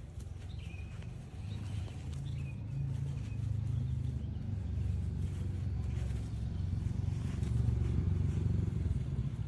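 A low rumble that grows gradually louder, with a few faint short high chirps in the first few seconds.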